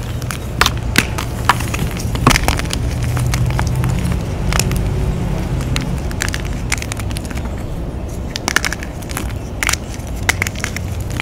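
Blocks of dyed gym chalk being crushed and crumbled, giving irregular sharp cracks and crackles over a steady low rumble.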